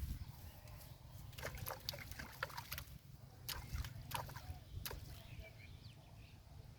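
Water splashing and sloshing in a canal: a run of short, sharp splashes between about one and a half and five seconds in, over a low steady rumble.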